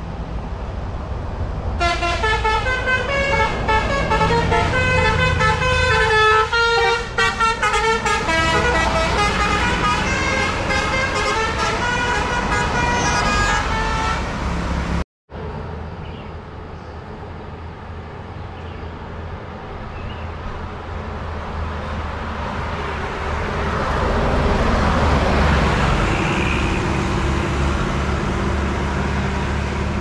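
Tour bus's basuri musical air horn playing a quick 'telolet' tune of shifting tones for about twelve seconds over the bus's engine. After a short break, a bus engine and tyre noise grow louder to a peak and then ease off as a bus passes.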